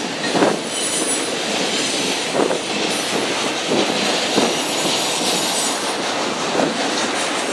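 BNSF intermodal freight train cars rolling past at steady speed: a continuous rumble and rattle of the cars, with wheels clacking over rail joints at irregular intervals. A faint, thin, high wheel squeal comes in near the start.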